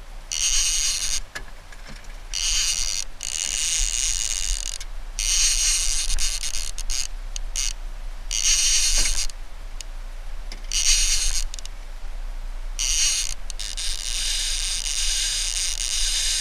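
Fishing reel's clicker ratcheting in buzzing stretches of about a second with short gaps, then running steadily for the last few seconds, as a hooked Chinook salmon is played on the bent rod.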